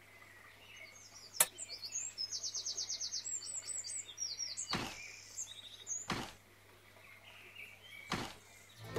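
A small songbird chirping, with a fast run of repeated high notes about two seconds in and scattered chirps after. A sharp knock about a second in is the loudest sound, and a few duller knocks follow later.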